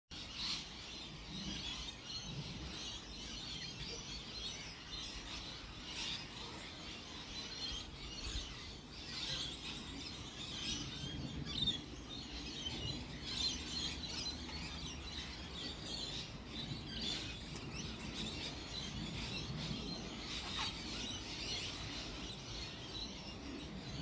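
Many small birds chirping and twittering steadily in the background, with a few short clicks, two of them louder about halfway through.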